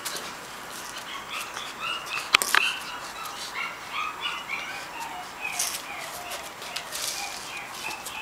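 Small birds chirping in short, repeated chirps, with a few sharp clicks, the loudest about two and a half seconds in.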